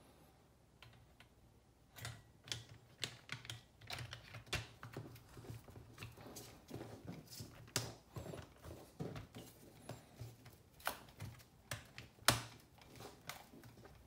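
Hard plastic clicking and tapping as the Ableton Push 2's top cover is pressed down and snapped back onto the controller's chassis. Many irregular clicks, several a second, begin about two seconds in; the sharpest comes near the end.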